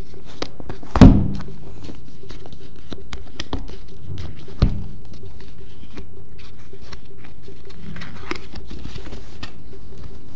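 Cardboard Apple Watch box handled on a tabletop: a loud thud about a second in as it is turned over and set down, and a second, lighter knock a few seconds later. Between and after them come light scratching and crinkling as fingers work and peel the paper pull tab on the back of the box, over a faint steady low hum.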